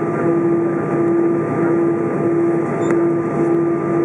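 Airbus A320 cabin noise while taxiing, heard inside the cabin over the wing: a steady rush from the jet engines and air systems with a droning hum that keeps dropping out briefly.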